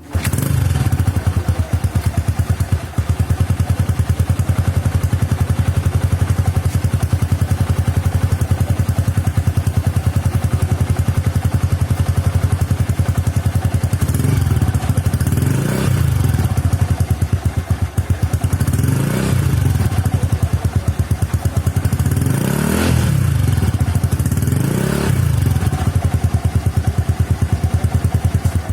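Yamaha Mio i 125 scooter's single-cylinder four-stroke engine breathing through an aftermarket MTRT Silent Killer exhaust pipe. It idles with a steady, even pulse, then in the second half is revved in several throttle blips that rise and fall.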